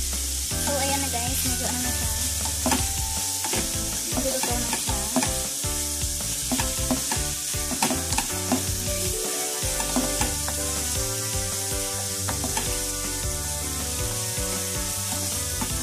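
Shredded cabbage sizzling in a hot nonstick frying pan while a wooden spatula stirs and tosses it, with repeated scraping and tapping against the pan.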